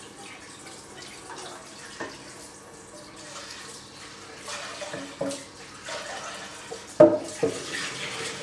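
Kitchen tap water running into a sink during washing up, with scattered clinks of crockery and pans and one loud clank near the end.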